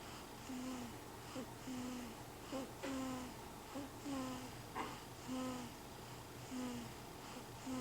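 Snoring: a short pitched note on each breath, falling slightly in pitch, repeating about once a second, with a fainter, shorter note in between.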